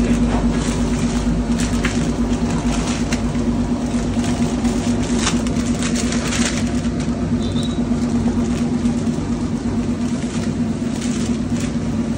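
Steady machine hum with a strong low drone, overlaid with the crinkle and rustle of a plastic bread bag being worked over a sliced loaf, busiest about five to six and a half seconds in.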